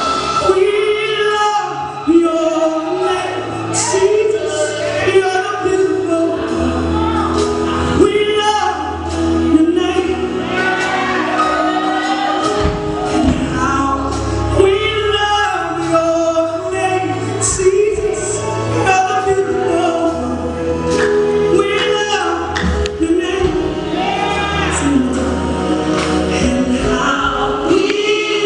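Live gospel worship singing: a woman leads into a microphone while a small mixed group of backing singers joins in, over instrumental backing with a steady bass.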